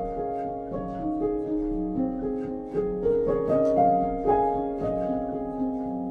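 Background music: a piano melody of struck notes that ring on, a new note about every half second.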